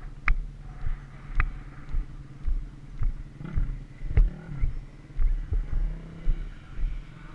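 Footsteps on grass about twice a second, heard as dull thumps through a helmet-mounted camera, over a steady engine hum. About halfway through, a motocross bike's engine revs up and back down.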